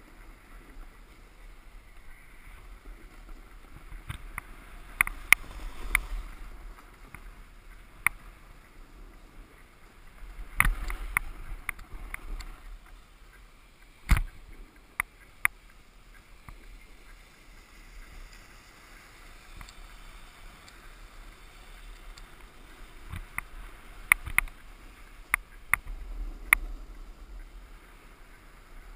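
Snowboard sliding and scraping over groomed corduroy snow: a steady hiss that swells louder several times, with sharp clicks and knocks scattered through it.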